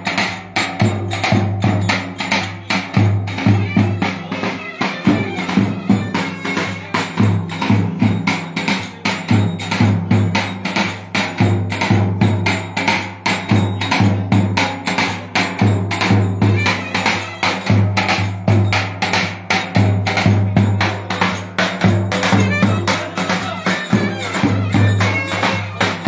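Davul, the large Turkish double-headed bass drum, beaten in a steady, driving dance rhythm while a wind instrument plays a continuous melody over it: a Black Sea regional folk dance tune (oyun havası).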